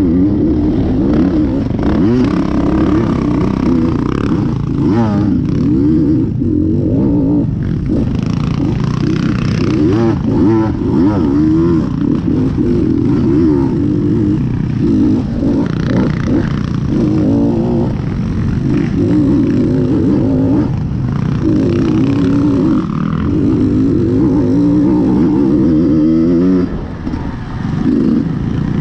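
KTM XC-W dirt bike engine being ridden hard off-road, revving up and down over and over as the throttle is worked, its pitch rising and falling. The sound drops briefly near the end.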